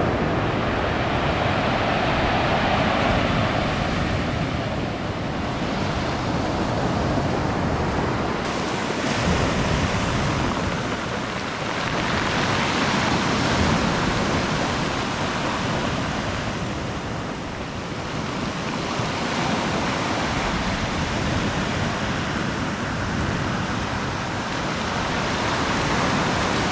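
Ocean surf breaking on a beach: a steady rushing wash of waves that swells and eases every several seconds.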